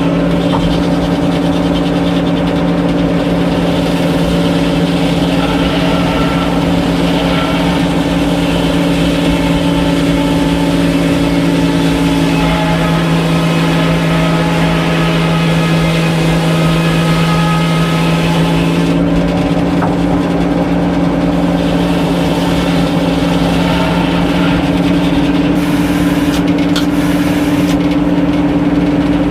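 Old sawmill machinery running steadily with a constant, even hum that does not rise or fall.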